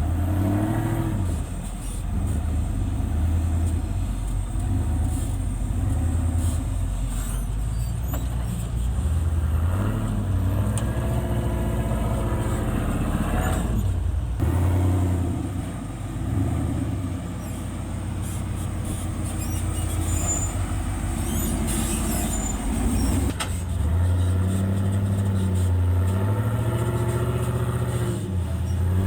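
Side-by-side UTV engine revving up and falling back again and again while crawling over rocks.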